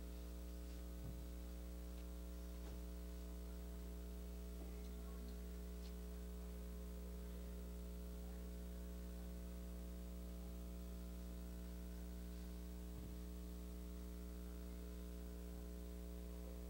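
Steady electrical mains hum in the recording, with a few faint clicks.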